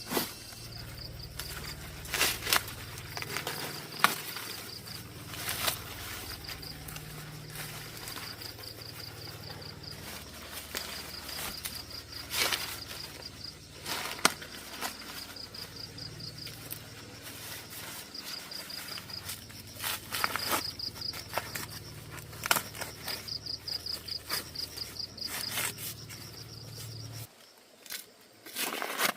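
Insects chirping in repeated trains of fast, high-pitched pulses, with scattered sharp clicks and knocks and a low steady hum that cuts off near the end.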